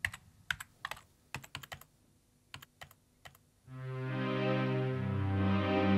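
Irregular key clicks like typing on a keyboard, then music with sustained synthesizer-like chords comes in a little past halfway and carries on.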